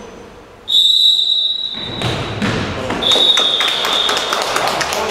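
Referee's whistle blown twice in an indoor hall: a long shrill blast about a second in and a second blast about three seconds in. Between them come repeated thuds of the ball and players' feet on the court floor.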